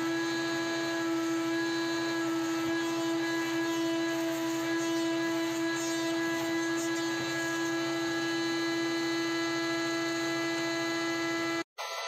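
Wood-Mizer WM4500 industrial band sawmill running through a cut in a squared log: a steady machine hum with a constant high whine over a noisy hiss. It cuts off abruptly just before the end.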